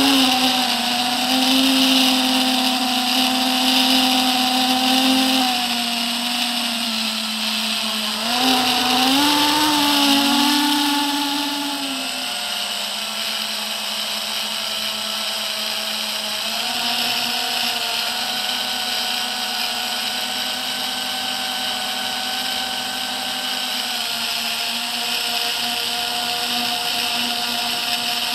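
FPV quadcopter's brushless motors and propellers whining in flight, the pitch following the throttle. It is higher for the first five seconds or so, dips and climbs again about nine seconds in, then settles lower and steady.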